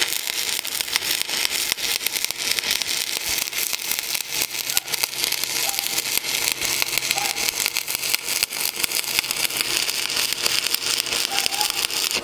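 Stick-welding (SMAW) arc run from an HTP Inverarc 160 Plus inverter welder, the electrode burning steadily with a dense, even crackle as a bead is laid into the joint of a steel splitting wedge.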